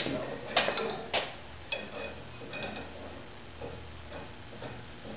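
Small metal clinks as a nut and socket are fitted onto a trailer axle U-bolt by hand: four sharp clinks in the first two seconds, then fainter ticks about once a second.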